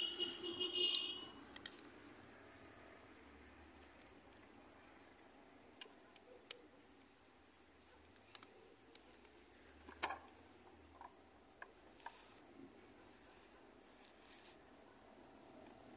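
Faint handling sounds of small objects being taken out of a handbag: scattered light clicks and rustles, the sharpest about ten seconds in, with a brief high squeak at the very start.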